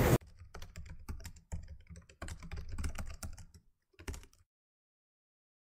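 Faint, irregular clicking like typing on a keyboard, stopping about four seconds in, followed by dead silence.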